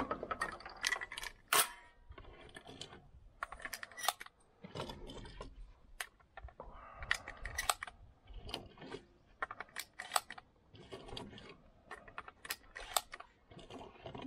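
Shotgun shells being loaded one after another into an MP-155 semi-automatic 12-gauge shotgun: an irregular series of sharp metallic clicks and handling noises.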